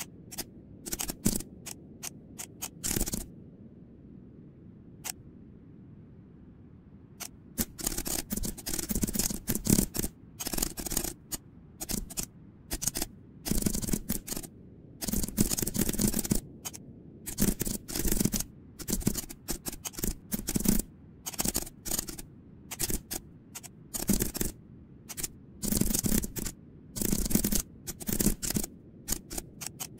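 Computer keyboard typing in quick bursts of keystrokes separated by short pauses, with only a few scattered clicks in the first several seconds.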